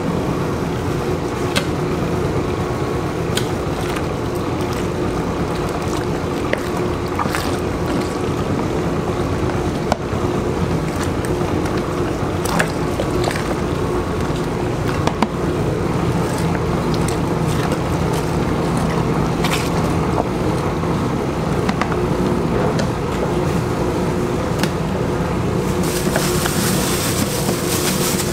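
Large commercial dough mixer running steadily, its motor humming as the dough hook turns through flour, with scattered light clicks and knocks. Near the end a rustling hiss joins in as beaten egg is poured in from a plastic bag.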